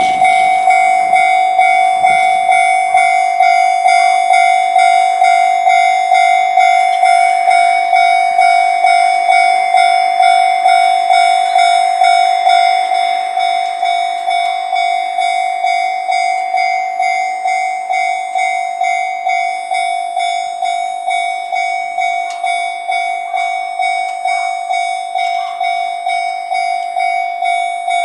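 Japanese railway level-crossing warning bell ringing, an even, rapid clang-clang of about two strokes a second. It starts suddenly and goes a little quieter about halfway through.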